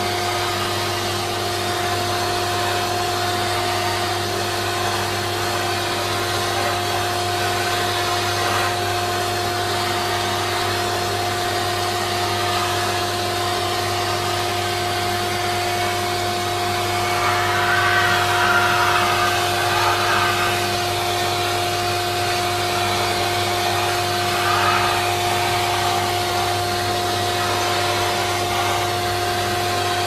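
Siemens Synchropower vacuum cleaner running with its wand held against a jacket's fur hood and collar: a steady motor whine and rush of air. The air hiss grows louder for a few seconds about halfway through and again briefly a few seconds later.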